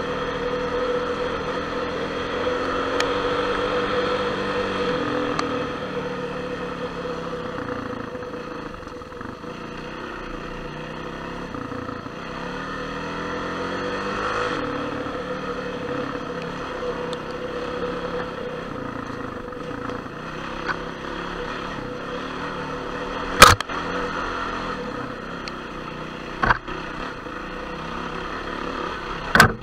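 Enduro motorcycle engine running as the bike is ridden off-road, revs rising and falling with the throttle. Three sharp knocks come in the last third, the first the loudest.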